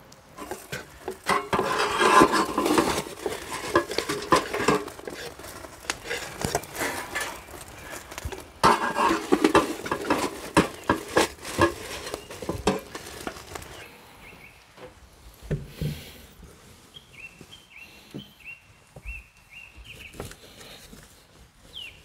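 Clatter and rustle of metal kebab skewers, plates and utensils being handled on a camp table, busiest in the first half. Near the end a bird chirps several times.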